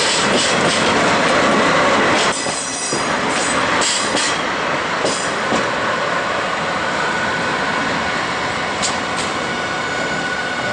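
A JNR DD51 diesel-hydraulic locomotive running light at low speed close by, its diesel engines running and its wheels clicking over the rail joints, then moving away. A thin steady squeal from the wheels on the rails comes in about halfway through.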